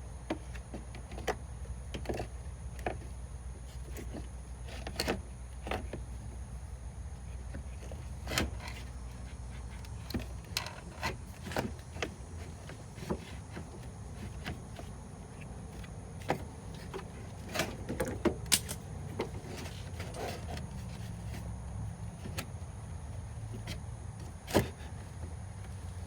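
Irregular clicks and knocks of parts and tools being handled while a radiator is fitted into a car's engine bay, over a steady low hum. The sharpest knocks come about two thirds of the way in and near the end.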